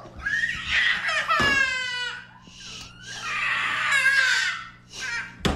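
Toddler crying and screaming in a tussle over a toy, in three bouts with a falling wail in the middle; the caption mocks it as overacted.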